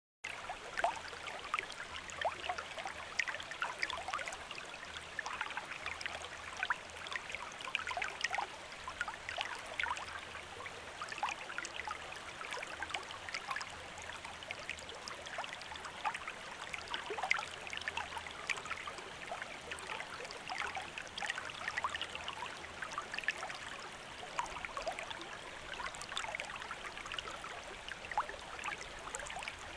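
Stream water flowing over stones, a steady babbling wash full of small splashes and gurgles.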